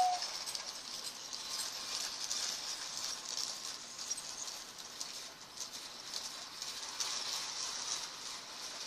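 Old Lionel toy train running on its track: a faint, steady whir and patter from its small motor and wheels, just as its two-tone whistle stops. The owner says it doesn't run well because it is old.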